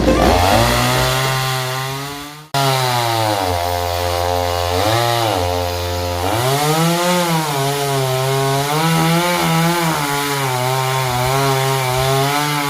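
Two-stroke chainsaw running under load as it cuts wood, its engine pitch rising and sagging every second or two as the chain bites. The sound fades and cuts out briefly about two and a half seconds in, then comes straight back.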